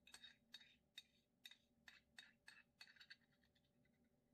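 Lynx point cat eating wet pâté cat food from a dish: a run of short, wet licking and chewing smacks, about two to three a second, faint, stopping about three and a half seconds in.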